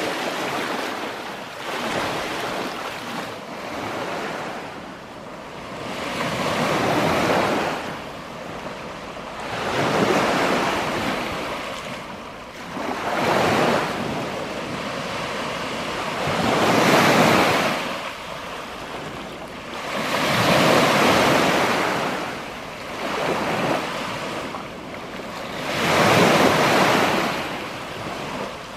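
Small lake waves washing up onto a sand and pebble beach, each wave a rising and falling rush of water, one every three seconds or so.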